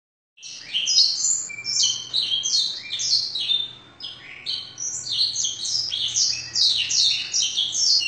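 Domestic canary singing a fast, continuous song of quick high chirps and trills, a song filled in (isian) with learned blackthroat (black-throated canary) phrases. The song starts about half a second in and dips briefly near the middle before going on.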